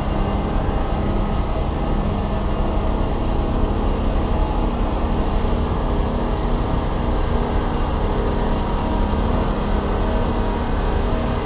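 Dark ambient drone: a dense, steady low rumble with many held tones layered above it, unbroken throughout.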